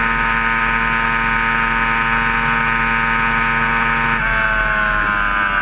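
Sport motorcycle engine running at high, steady revs in sixth gear at speed. About four seconds in, the engine note drops and then keeps sliding lower as the bike slows.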